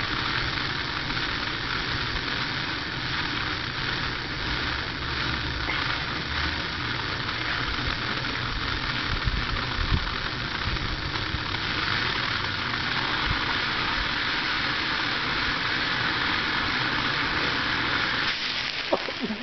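Handheld blowtorch burning with a steady hiss, its flame held on a pile of thermite to heat it to ignition. The hiss fades near the end.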